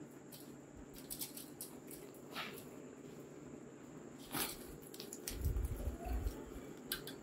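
Steel bearing race being set in a small charcoal forge: a few sharp metallic clinks and light crackles over a steady low hum. Near the end come heavier low, rumbling knocks as a domed metal cover is fitted over the fire.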